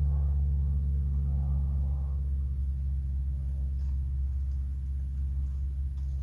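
A steady low rumble runs throughout, with a few faint clicks near the middle and end.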